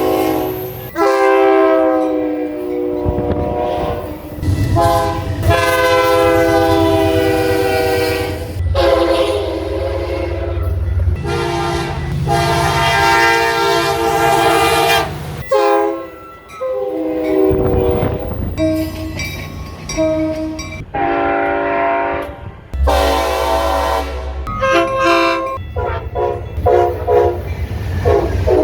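Train air horns sounding chords in long and short blasts, several different horns one after another, with a run of quick short blasts near the end. A low train rumble runs underneath.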